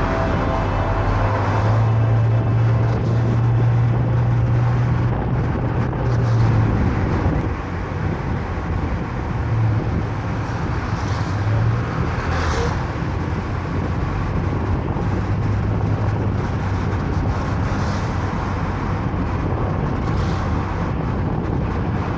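Car driving along a road: steady engine and tyre noise with a low hum, and a brief louder whoosh about halfway through.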